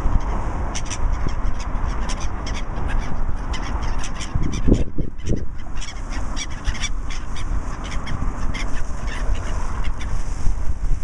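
A group of birds calling, many short calls overlapping thickly, over a steady low rumble.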